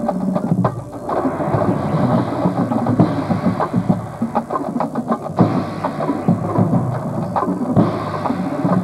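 Drum corps drumline playing together, with rapid, dense drum strikes throughout.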